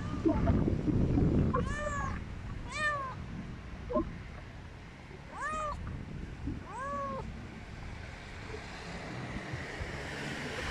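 Cat meowing four times at close range, short calls that each rise and then fall in pitch, the last two about a second and a half apart.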